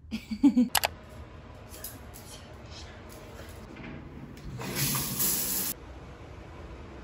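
Shower running: water spraying hard for about a second, then stopping suddenly. Near the start there is a brief cluster of sharp clicks and a short pitched sound, which is the loudest moment.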